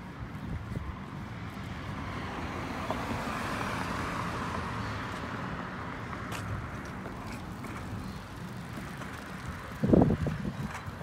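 Street traffic noise swelling and fading as a vehicle passes. Near the end comes a single loud knock with a rattle as a bicycle pulling a trailer loaded with bagged cans rides by close.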